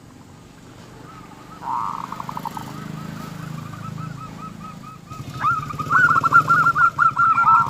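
Zebra dove (local perkutut) cooing: fast runs of short, repeated, slightly raspy notes, one brief run about two seconds in and a louder, longer run from about five and a half seconds. An engine hums underneath from about five seconds in.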